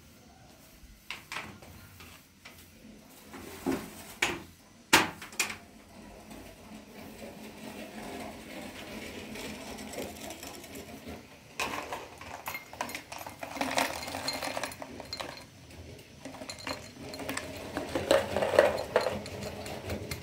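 Glass tea glasses, a metal tray and a glass sugar bowl clinking and knocking as they are set out and handled: a few sharp knocks in the first six seconds, then a busier run of clinks and rattles through the second half.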